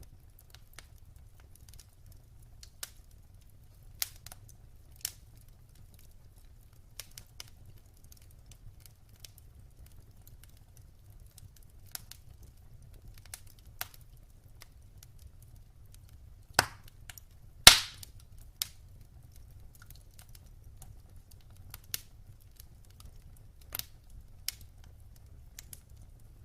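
Wood fire crackling in a fireplace: scattered sharp pops and snaps over a faint low rumble, with two loud pops about two-thirds of the way through.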